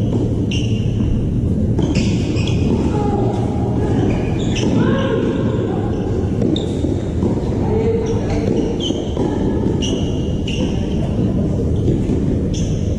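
Tennis ball being struck and bouncing during a doubles rally, over a steady low background rumble, with short high squeaks scattered through it.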